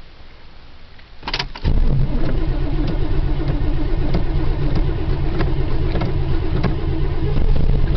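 1979 Camaro Z28's 350 V8 being cranked over by the starter on a cold start after sitting, beginning with a click about a second and a half in, then steady cranking that doesn't catch.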